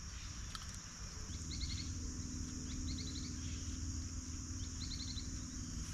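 Steady high-pitched insect drone with three short runs of quick chirps, over a low steady rumble.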